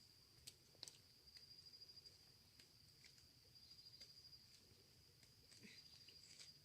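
Near silence with a faint, steady high-pitched insect trill running throughout, and a few soft clicks, two of them about half a second and a second in.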